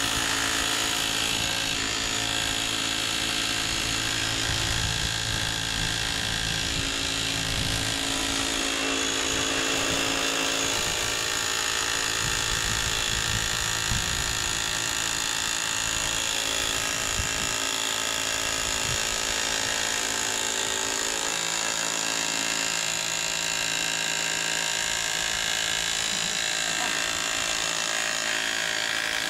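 Hilti cordless hammer drill running steadily without a break, hammering a steel lightning-protection earth rod down into the ground.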